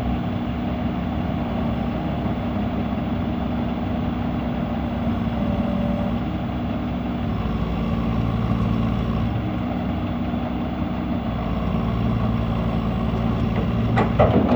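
Excavator's diesel engine running steadily, its note strengthening and easing a little as the load changes. A brief knock near the end.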